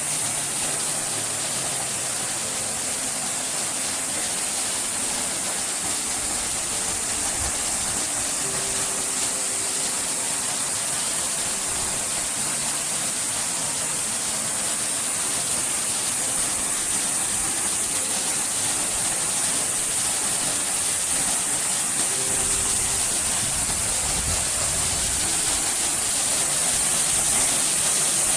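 Waterfall rushing, a steady noise of falling water that grows slightly louder near the end.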